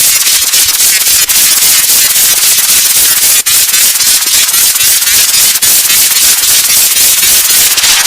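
A wheezing sound clip put through heavy 'Preview 2' style distortion effects, turned into a harsh, clipped wall of crackling static at near full loudness, with most of its energy high up. It drops out briefly about three and a half seconds in.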